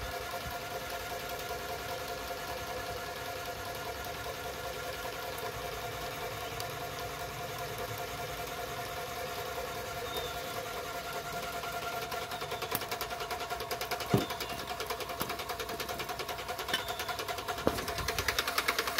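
Graco airless paint sprayer's electric piston pump running steadily while it circulates water, a steady mechanical hum with a fast pulsing rattle that grows stronger in the last few seconds. A single knock about fourteen seconds in.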